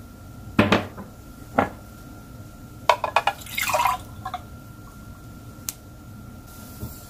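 Glasses knocking down onto a table, then a gelatin-water mixture poured briefly from a measuring cup into a drinking glass about halfway through, with small glass clinks around the pour.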